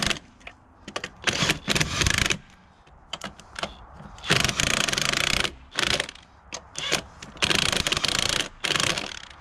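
Cordless impact wrench running wheel lug nuts down snug, in several short bursts of a second or so each with pauses between as it moves from nut to nut.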